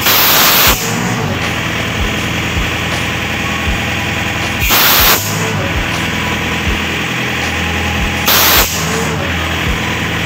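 Airman PDS185S portable diesel screw compressor running steadily while its outlet ball valve is opened in three short blasts of compressed air: a loud hiss at the start lasting under a second, another about five seconds in, and a shorter one near eight seconds, showing the compressor is delivering air.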